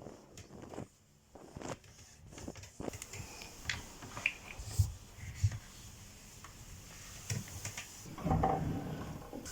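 Household handling sounds while a dresser is cleaned: scattered small clicks and knocks, two low thumps about five seconds in, and a louder stretch of rustling and rubbing near the end.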